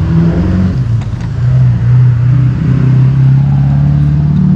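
An engine running, a loud low hum whose pitch steps up and down a little.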